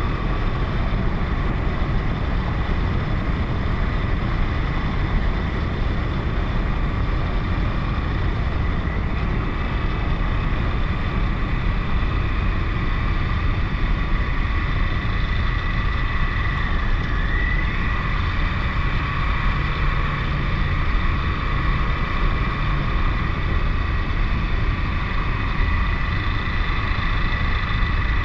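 KTM 1090 Adventure motorcycle riding at an even pace: its V-twin engine runs steadily under a rush of wind noise. A steady high whine sits over the noise and rises briefly in pitch about two-thirds of the way through.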